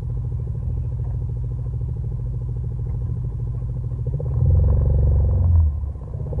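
Off-road vehicle's engine idling with a steady low throb, then revving up louder about four seconds in and easing off briefly near the end as the vehicle starts to move.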